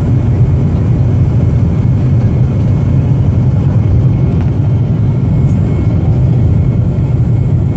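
Boeing 737-400 airliner in flight: a steady, loud low rumble of its CFM56 jet engines and rushing air, as heard in the cabin.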